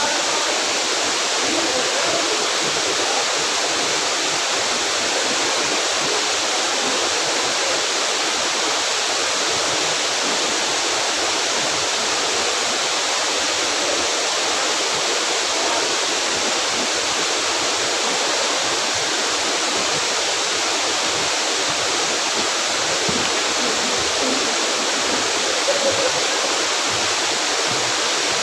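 Waterfall rushing steadily, an even, unbroken wash of water noise.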